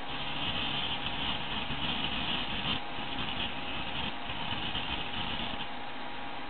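Opened hard disk drive running with its cover off, a steady scraping hiss from the head crashing on the spinning platter, with a few faint ticks; it stops about five and a half seconds in.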